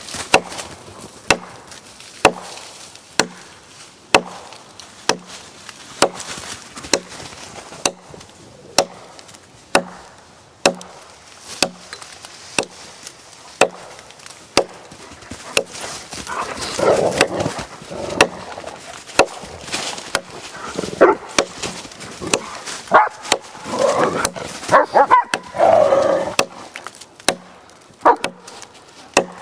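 Gransfors Bruks Mini Hatchet chopping into a log, with sharp strokes about one a second. From about halfway a dog barks repeatedly over the chopping.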